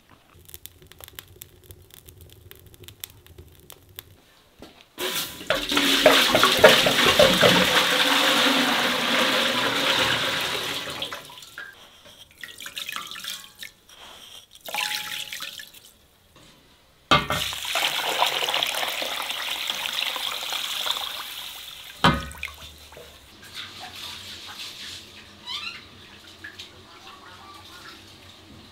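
Water being poured into a large aluminium cooking pot, in two long pours several seconds each, with a sharp knock at the end of the second.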